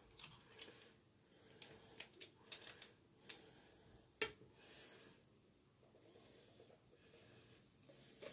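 Near silence with faint sounds of aftershave being applied by hand: soft rubbing and a few light clicks and pats, the sharpest click about four seconds in.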